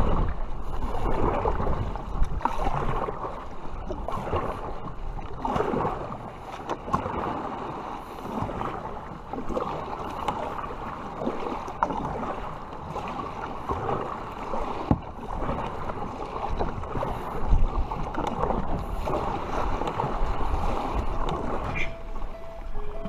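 Kayak paddle strokes splashing through choppy sea water, in repeated swells, with wind buffeting the microphone. Plucked string music, like a ukulele, comes in near the end.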